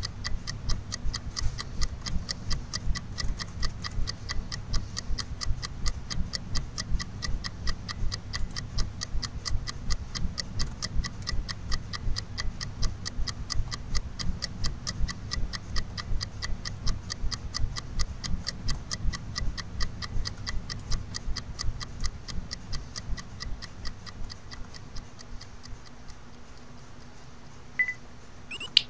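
Fast, even ticking like a clock, several ticks a second over a low steady hum, fading out in the last few seconds; a sharp click just before the end.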